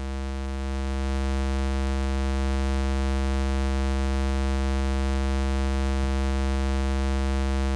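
One voice of the Northern Light Modular h8B 8-bit synth voice module, a digital oscillator based on Mutable Instruments Edges, playing a single steady low tone rich in overtones. It swells up over about the first second as its level knob is turned up, then holds as an unchanging drone.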